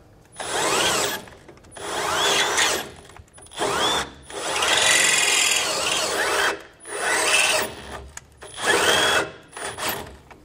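Small cordless grinder running in about seven short bursts, speeding up and winding down each time, as its bit is worked through a tight sway-bar end-link mounting hole to enlarge it so a larger bolt will pass through.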